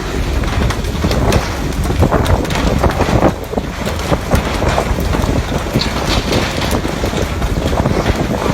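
Heavy wind buffeting the microphone: a loud, rough, rumbling hiss with irregular gusts.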